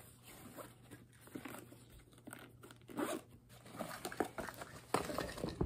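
Rummaging in a nylon gear bag and pouch: irregular rustling and short rasps of the fabric being handled and opened, a little louder about three and five seconds in.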